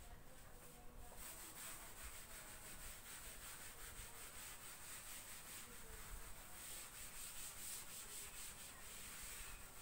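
Chalk being wiped off a blackboard with an eraser: faint, rapid back-and-forth rubbing strokes that start about a second in.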